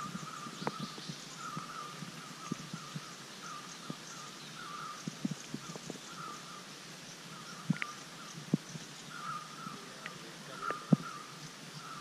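Rainforest ambience: a steady chorus of short chirps from wild animals, repeating every half second or so, with fainter higher chirps over it. A few sharp soft knocks stand out, the loudest near the end.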